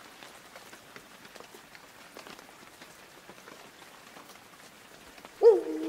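Light rain falling, a faint steady hiss with scattered drop ticks. Near the end a sudden loud tone sets in, dipping in pitch and then holding steady as several notes sounding together.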